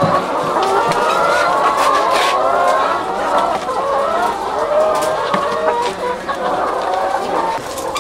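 Many caged laying hens clucking together, a dense chorus of overlapping calls, with a few sharp clicks.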